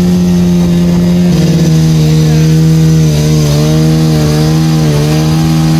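Outboard motor of a wooden local speedboat running at speed, its pitch stepping down a little about a second and a half in and then wavering slightly.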